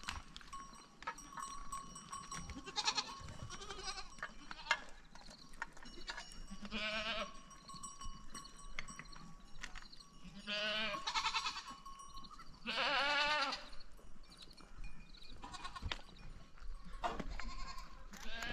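Small livestock bleating, several long wavering bleats with the loudest near the middle, and a bell clinking faintly now and then.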